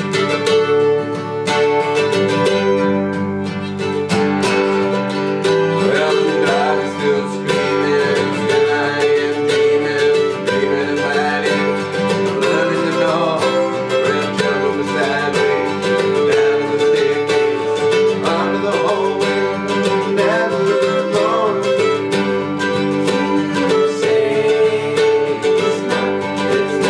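Country-jazz band music led by plucked guitar, with steady chords and a wandering melody line over them.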